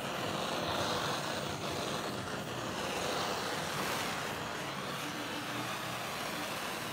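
Handheld torch flame running with a steady roaring hiss, swept over freshly poured epoxy resin to pop air bubbles in the surface.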